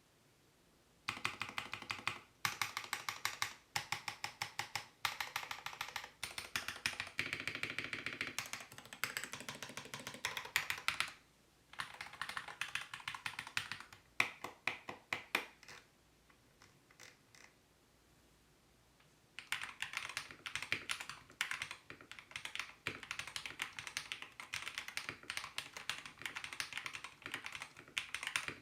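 Budget mechanical keyboard, modded with a hacksaw-cut plate and silicone, being typed on in fast runs of keystrokes. Typing starts about a second in, stops for a few seconds about halfway with only a few stray key presses, then resumes.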